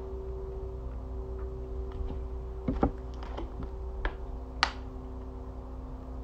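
A drinking glass being handled and sipped from: a few light clicks and taps, the sharpest about four and a half seconds in, over a steady low hum.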